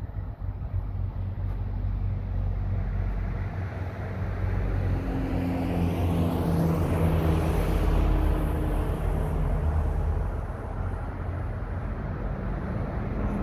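A motor vehicle driving past, its engine drone and road noise swelling to a peak a little past halfway, then easing off slightly.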